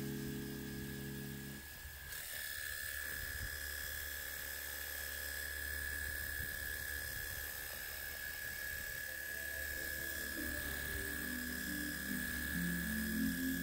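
A small electric motor running with a steady high whine, which starts about two seconds in. Background music sounds at the start and again near the end.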